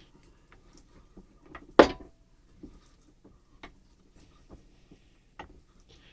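Vintage Sargent and Company hand-cranked meat grinder being turned to grind ham, knocking and clicking about once a second, with one loud metal clank and a short ring about two seconds in.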